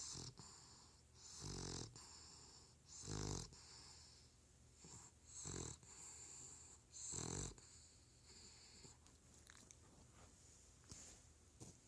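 Bulldog puppy snoring in its sleep: faint, wheezy snores with a buzzing rattle, about five of them one and a half to two seconds apart, dying down after about eight seconds.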